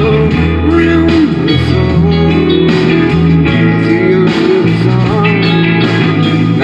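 Music with a guitar, a steady bass line and a singing voice.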